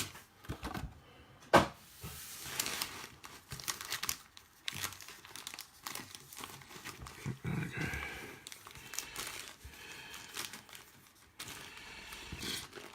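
Plastic wrap on trading-card boxes crinkling and tearing as it is pulled and handled by hand, with one sharp click about a second and a half in.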